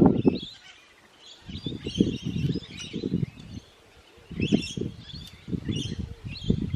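Parrots chirping with short, scattered calls, while a low rumble comes and goes several times.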